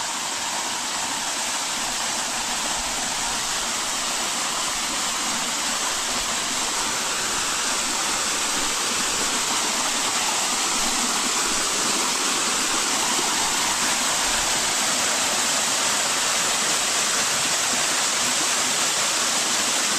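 Waterfall pouring steadily, heard from the foot of the fall: a dense, even rush of falling water.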